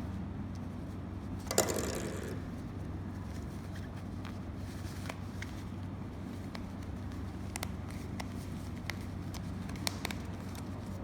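Parts of a fan vest being handled during assembly: a rustling scrape about a second and a half in, then several light clicks, over a steady low hum.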